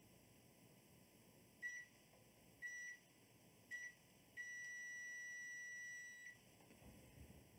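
Digital multimeter's continuity beeper: three short beeps about a second apart, then one steady beep of about two seconds while the probes hold contact, signalling continuity through the rewired power cable's pins.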